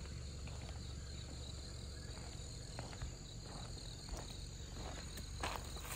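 Faint, steady chorus of night insects, crickets chirping in a continuous high trill. A few soft footsteps and handling sounds come through in the second half.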